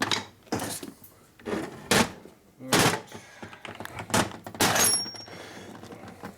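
A series of knocks and clatters, about seven in all, one near the end with a brief metallic ring.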